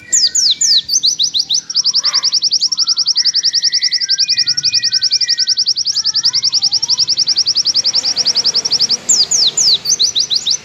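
White-eye (pleci) singing a long, fast trill of high downward-sweeping notes, about a dozen a second. The notes briefly turn wider and more ragged just after the start and again near the end, with softer, lower chirps underneath.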